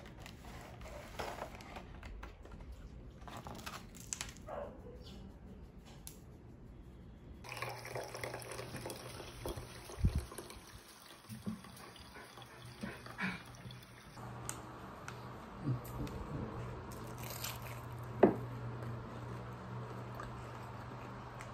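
Quiet close-up food-handling sounds in a few short takes: a paper box of Korean corn dogs being handled, sauce in glass bowls, then a corn dog being eaten, with soft scattered taps and rustles. A low steady hum sits under the later takes, with a low knock about ten seconds in and a sharper tap near eighteen seconds.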